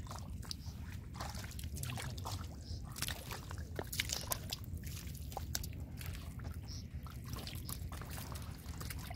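Hands sloshing and splashing in shallow muddy water while groping for fish: irregular small splashes and wet slaps over a steady low rumble.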